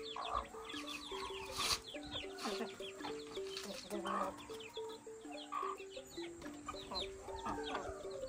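Chickens crowding round scraps, hens clucking and young chicks peeping rapidly. Under them runs background music, a simple repeating melody of short notes.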